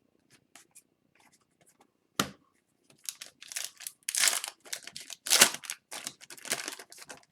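Foil wrapper of a hockey card pack being torn open and crinkled: a sharp tap a couple of seconds in, then a run of loud tearing and crinkling bursts.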